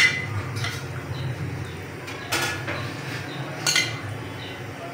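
A metal spoon scooping cut jelly cubes out of a glass dish, clinking sharply against it four times, the first clink the loudest, over a low steady hum.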